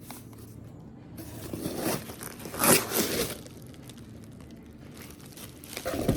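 Packaging being torn and crinkled by hand as a taped parcel is opened, in a few irregular bursts, loudest about two and a half seconds in.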